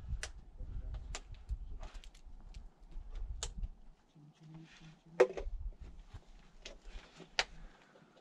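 Scattered sharp clicks and knocks, about seven in all, over low rumbling on the microphone. The rumbling dies away about four seconds in and returns briefly a second later.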